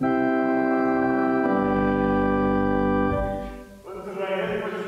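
Organ holding a sustained chord, with a low bass note entering about a second and a half in; the chord stops after about three seconds, and a voice begins singing near the end.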